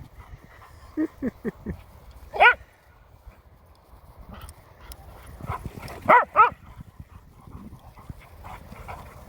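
A dog barking and yipping: four quick low woofs about a second in, a single high yelp, then two high yips a little past the middle.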